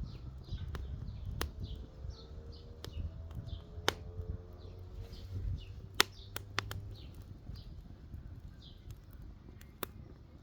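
Campfire crackling with scattered sharp pops, while a small bird calls over and over in short high chirps.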